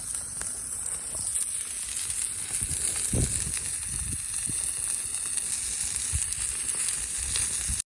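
Food sizzling as it cooks: a steady hiss with scattered soft pops. The sound cuts off abruptly near the end.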